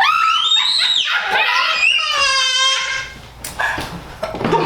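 High-pitched human screaming: a rising shriek at the start, then a long wavering cry about two seconds in, before a brief lull.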